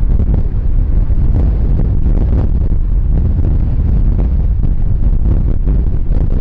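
Storm-force wind buffeting the microphone: a loud, uneven low rumble that surges with each gust and drowns out other sound.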